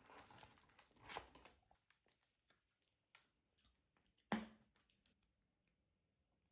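Faint rustling of paper and a cardboard food box as a baguette is handled, then a sharp click about four seconds in as a plastic sauce bottle is opened.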